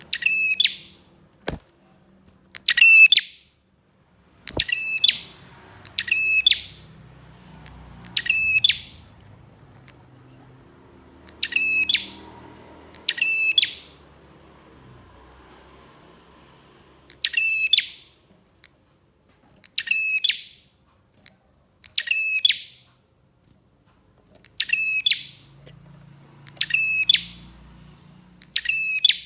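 Prenjak (prinia) calling loudly in short, rapid chattering phrases, one every two to three seconds. Two sharp clicks come in the first few seconds.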